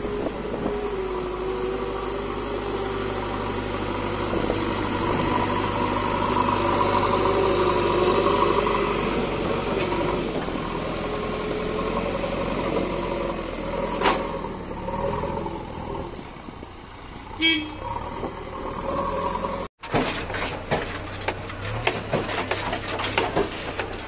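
JCB backhoe loader's diesel engine running under load as the front bucket pushes soil, with a wavering hydraulic whine that rises and falls. After a cut about 20 s in, a tractor's engine is heard from inside the cab with a fast rattling clicking.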